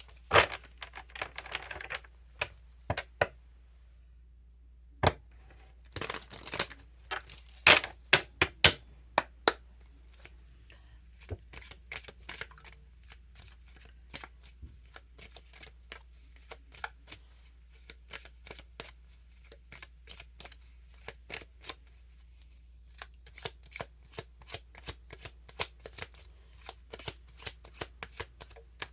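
A deck of cards being shuffled by hand: irregular snaps and slaps of the cards, loudest in a cluster about six to nine seconds in, then a longer run of quicker, lighter clicks, over a faint low hum.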